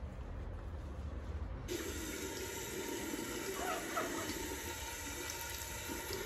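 Tap water running into a bathroom sink, coming in abruptly about a second and a half in after a faint low outdoor rumble.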